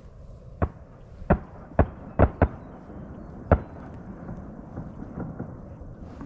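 Six distant shotgun shots within about three seconds, each with a short echo.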